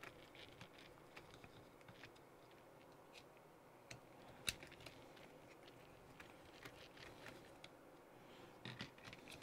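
Near silence, with faint scattered clicks and taps of hands handling a radio-controlled car's receiver box and chassis; one sharper click about four and a half seconds in.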